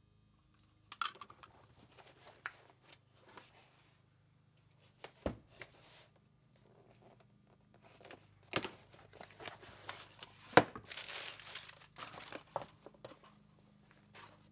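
A cardboard box being handled and opened, with brown packing paper crinkling as it is pulled out. Scattered clicks and several sharp knocks come from the box and parts being handled, the loudest about ten seconds in.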